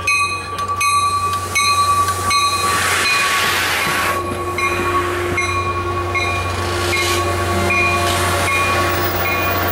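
ACE commuter train's bi-level passenger cars rolling slowly past as the train pulls into the station. A bell rings over and over, about twice a second, and there is a burst of rushing noise about three seconds in.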